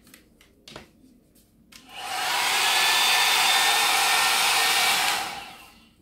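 Hot-air brush switched on: a few light clicks of handling, then about two seconds in its fan motor spins up with a rising whine and blows a steady rush of air for about three seconds before winding down as it is switched off.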